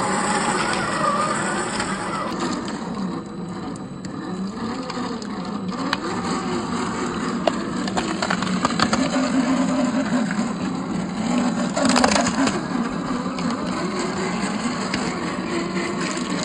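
Small electric motor and gears of a 1/10-scale RC crawler whining, the pitch rising and falling with the throttle, with a few sharp clicks and a louder crack about twelve seconds in.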